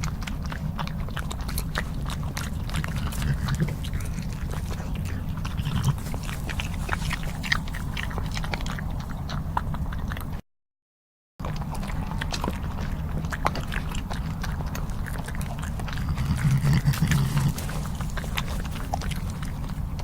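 European badger eating, with many small crunching and chewing clicks, and a low under-the-breath growl about three quarters of the way through. A second of silence about halfway, where one clip ends and the next begins.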